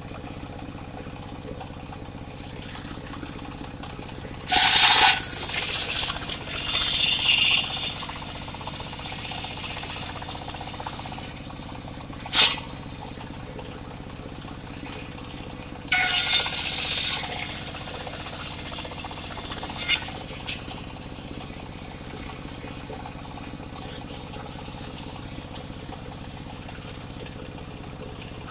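Engine-driven circular saw running with a steady engine hum, biting into mahogany in two loud cutting bursts of about a second and a half each, about four seconds in and again about sixteen seconds in. A short sharp burst of cutting noise comes near twelve seconds.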